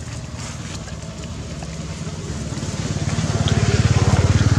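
A motor vehicle's engine running with a fast, even low pulse, growing louder over the last two seconds as it comes closer.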